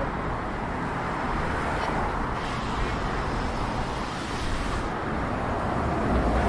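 Steady road traffic noise from cars passing on a busy city street, with a stretch of louder tyre hiss in the middle. Near the end a low rumble grows as a bus draws up alongside.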